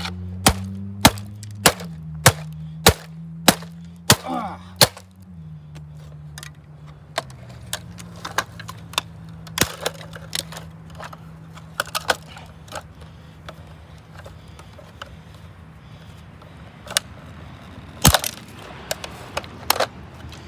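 Sledgehammer blows smashing the plastic body of a Dirt Devil vacuum cleaner: about nine hard strikes in a steady rhythm, a little under two a second, over the first five seconds, then scattered cracking and breaking, with a loud cluster of hits near the end.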